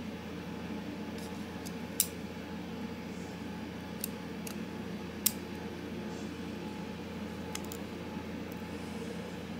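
Light, sharp clicks of the small metal parts of a Spyderco Paramilitary 2 folding knife knocking together as a handle scale is fitted by hand: two clear clicks about three seconds apart and a few fainter ones. Under them runs a steady low hum.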